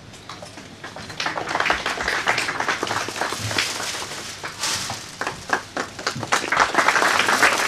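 An audience applauding, the clapping starting thin and growing louder and denser over the seconds.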